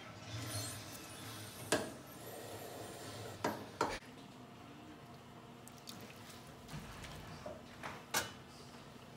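A few sharp metal knocks against a stainless steel sauté pan as cooked spaghetti goes in with the shrimp and sauce. There is one knock, then a quick pair, then a last one near the end.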